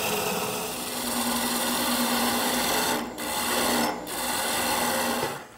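Spindle gouge cutting into a spinning wooden bat blank on a wood lathe: a steady rasping hiss of shavings coming off over the lathe's even hum. The cut breaks off briefly twice, about three and four seconds in, and stops near the end.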